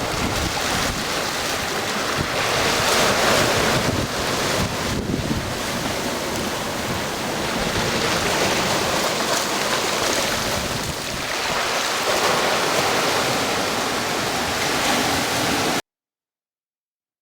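Sea surf and wind buffeting the microphone, a steady rushing noise that swells and eases every few seconds, then cuts off to silence shortly before the end.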